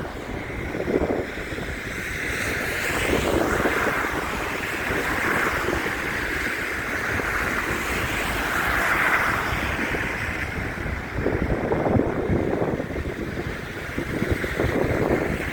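Storm wind buffeting a phone microphone: a constant low rumble with a rushing noise that swells and fades every few seconds.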